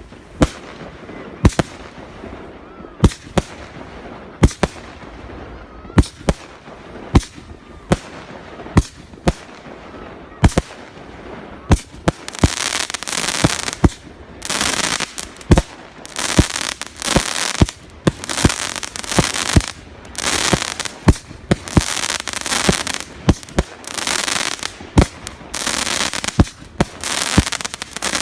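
Fireworks display: sharp bangs of shells bursting, about one or two a second. From about halfway through, long hissing rushes of about a second each fill the gaps between the bangs.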